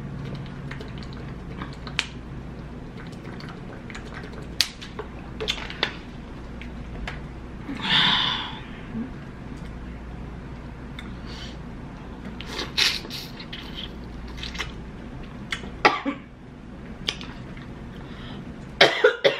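Close-miked eating sounds: scattered mouth clicks and smacks while chewing giant shrimp, with a short breathy burst about eight seconds in. Near the end come a few loud coughs as shrimp juice goes down the wrong pipe.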